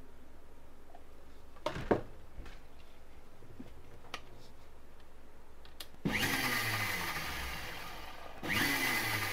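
Sujata mixer grinder run in short pulses: a couple of knocks as the jar lid goes on about two seconds in, then the motor spins up suddenly about six seconds in, runs for a couple of seconds and is pulsed again near the end. It is beating a fresh egg while split mayonnaise is added little by little to bring the mayonnaise back together.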